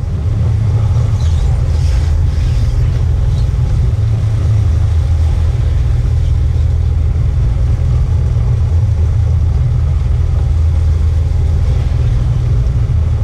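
Fishing boat engine running steadily with a loud, low, even rumble.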